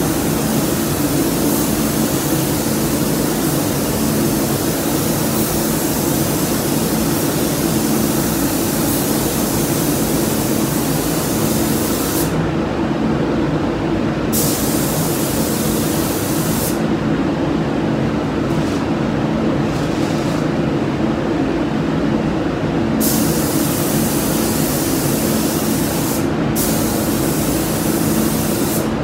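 Paint spray gun hissing as it lays down the first coat of paint, the hiss stopping for about two seconds around twelve seconds in and for about six seconds from about seventeen seconds in, over a steady hum of the spray booth's ventilation.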